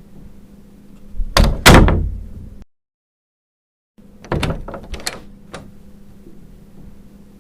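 A door closing: a couple of sharp latch clicks, then a loud thud about a second and a half in, followed by a gap of dead silence. Then a fresh run of latch clicks as the door is worked again, with a faint steady hum underneath.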